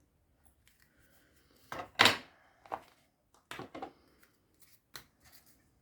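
Handling of craft tools on a desk: a few short knocks and taps with some rustling, the loudest about two seconds in, as a stamp and block are lifted and set down.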